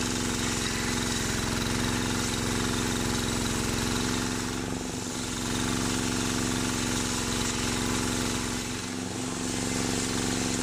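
Homemade table circular saw running steadily while its blade rips a waru (sea hibiscus) log lengthwise, a continuous motor drone under the hiss of the cut. The drone dips briefly twice, about halfway through and near the end.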